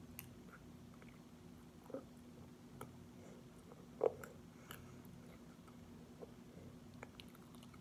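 A toddler's faint mouth sounds, chewing and smacking on fruit snacks and fingers, with scattered small clicks and one short louder sound about four seconds in, over a low steady hum.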